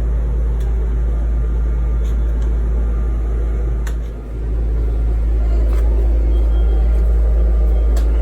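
A steady, loud low rumble, like machinery running, that dips briefly about four seconds in, with a few light clicks from handling or tools.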